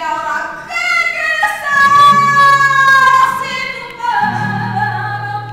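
A woman singing flamenco cante: long held, ornamented notes that slide downward, sung loud. A low steady note joins about four seconds in.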